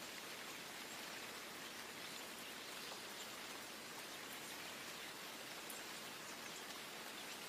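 Steady rain falling, a faint even hiss with occasional soft drop ticks.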